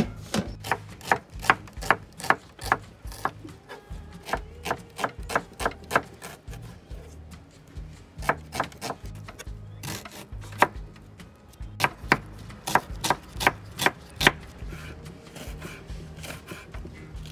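Kitchen knife chopping red onion and green chillies on a wooden cutting board, the blade striking the board in runs of about two to three strokes a second, with pauses between runs. Soft background music plays underneath.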